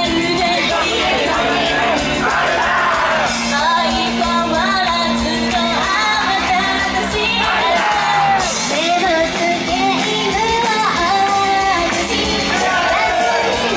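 Idol-pop song performed live: female voices singing the melody over upbeat pop backing music, with shouts heard along with it.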